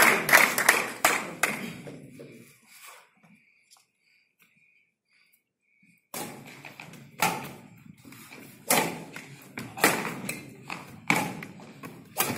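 Clapping dies away into a few seconds of near silence, then a badminton rally begins: sharp racket strikes on the shuttlecock, about one a second.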